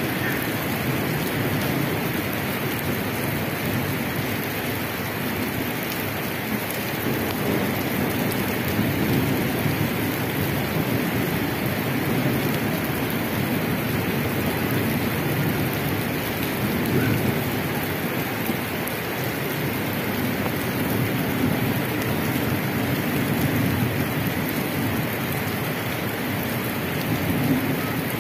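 Steady rain falling on a wet asphalt street and splashing into puddles.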